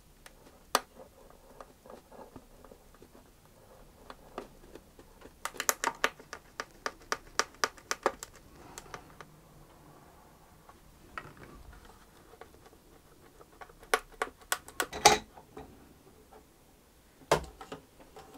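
Light clicks and taps of a violin body and a wooden clamp being handled as the clamp is fitted to hold the reglued ribs against the neck block. There is a quick run of clicks about five and a half seconds in, a louder cluster near the end, and one sharp knock just before the close.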